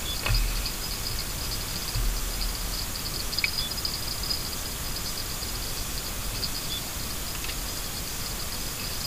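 Riverbank ambience: a steady hiss with thin, rapid, high twittering of small birds, and a few low thumps near the start and about two seconds in.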